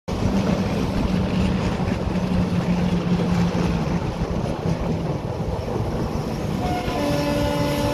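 Running noise of an Indian Railways passenger train heard from an open coach door: a steady rumble of wheels on the track mixed with wind, starting suddenly. A few thin tones come in near the end.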